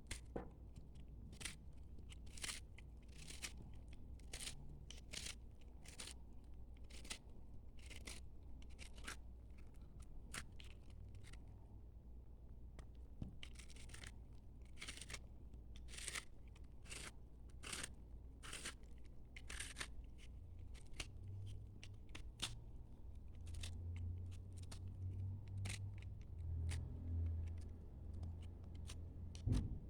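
A knife cutting through bars of soap: a long series of short, crisp scraping cuts, about one or two a second, over a steady low hum.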